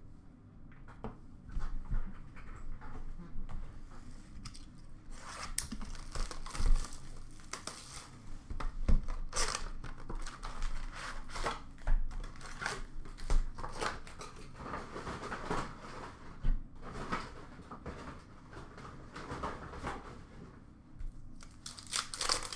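A cardboard retail box of hockey trading cards being torn open by hand, with irregular ripping and crinkling, then the plastic-wrapped card packs inside rustling as they are pulled out and handled.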